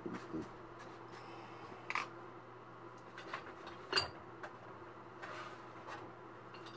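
Scattered light clicks and clinks of painting tools being handled, with one sharper click about four seconds in, over a steady low hum.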